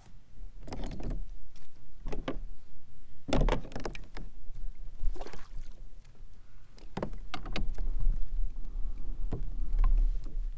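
Water slapping and splashing against the hull of an Old Town Topwater PDL pedal kayak under way, in irregular bursts of several slaps, over a steady low rumble.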